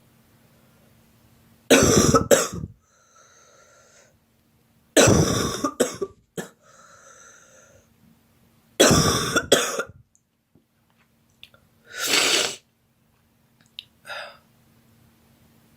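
A girl coughing in three loud bouts, each of two or three quick coughs, with breaths drawn in between. A softer single cough comes about 12 seconds in.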